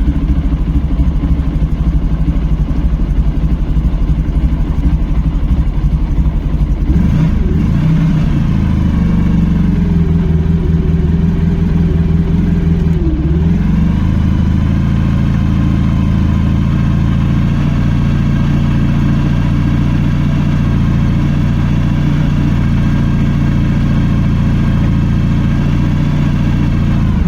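Motorcycle engine idling steadily, its note shifting slightly about seven seconds in and again around fourteen seconds.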